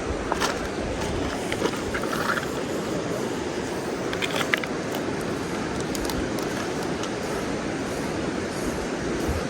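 Steady rush of a small mountain stream's flowing water, with a few faint clicks about half a second in and again around four seconds in.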